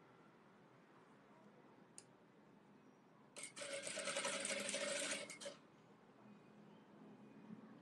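Industrial sewing machine running in one short burst of about two seconds as a seam is stitched, preceded by a single light click.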